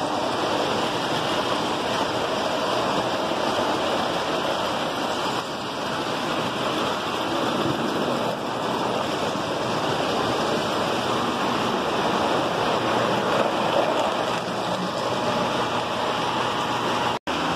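Three-rail O-gauge model trains running on metal track close by: a steady rushing rumble of wheels on rails and electric motors. It cuts out for a split second near the end.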